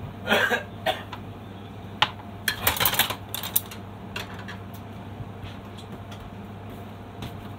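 Cookware being handled on the stove, clattering: a quick run of clicks and knocks through the first three and a half seconds, then only a steady low hum.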